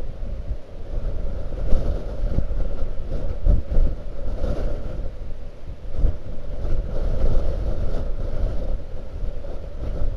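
Blizzard wind buffeting the microphone: a heavy, gusty low rumble that swells and eases every second or two.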